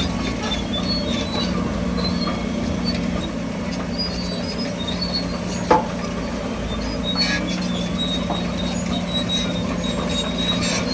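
Crawler bulldozer's diesel engine running steadily with a constant low hum, its tracks giving short high-pitched squeals. One sharp metallic clank a little past halfway.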